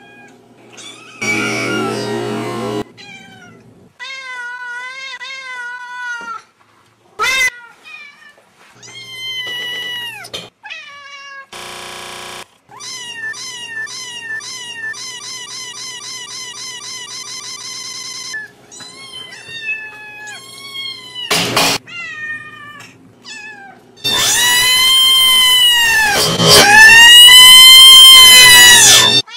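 Kittens and cats meowing, call after call, from high thin mews to longer calls, with a quick run of short mews midway. Near the end comes the loudest part, a run of long, drawn-out meows.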